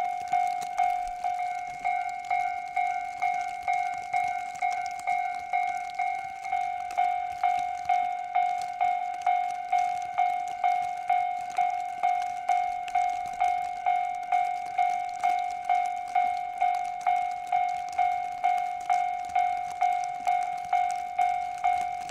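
Japanese level crossing warning bell ringing in a steady electronic ding, about two strikes a second, which signals that a train is approaching.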